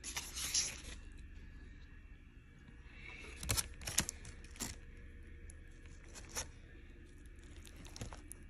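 Foil-lined sandwich wrappers crinkling and rustling under hands handling the food, with a longer burst of rustling at the start and a few sharp crackles later on.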